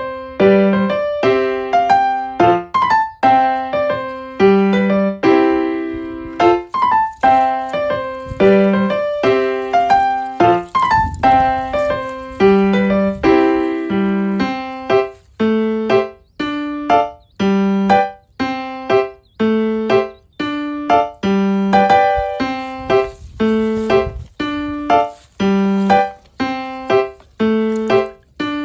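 Background music: a light piano tune of single plucked-sounding notes in a steady, bouncy rhythm.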